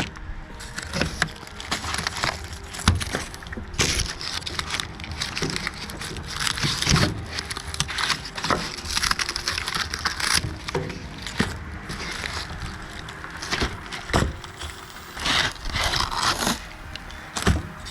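Cardboard box and packing inserts being handled and pulled apart: irregular rustling, scraping, crackling and knocks.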